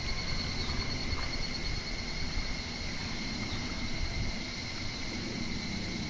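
A steady, high-pitched insect trill that holds one unbroken tone throughout, over a low fluttering rumble of wind on the microphone.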